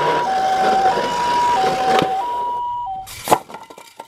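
Toy ambulance's electronic two-tone siren sounding the Japanese ambulance "pee-poh" pattern, a high and a low tone alternating about every two-thirds of a second. It cuts off about three seconds in, followed by a sharp click.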